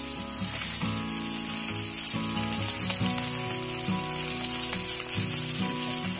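Fish pieces sizzling as they shallow-fry in oil on a flat iron pan. Background music plays over it, with held notes that change pitch about once a second.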